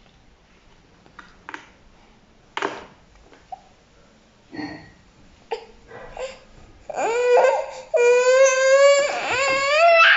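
A baby starts crying about seven seconds in: a loud, high, wavering cry, after a few short, scattered sounds.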